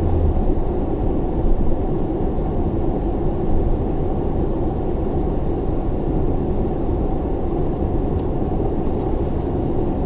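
Car engine running, heard from inside the cabin as a steady low noise.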